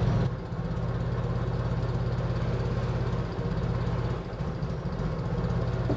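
Forklift engine running steadily, dropping to a quieter idle just after the start.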